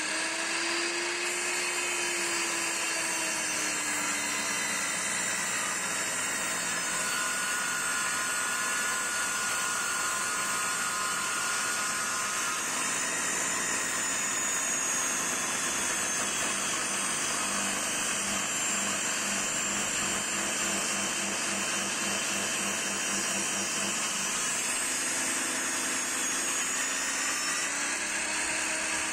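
Benchtop table saw running and ripping a thick block of old timber along the fence. The motor's pitch sags a few seconds in as the blade loads up in the cut and climbs back near the end as the cut finishes.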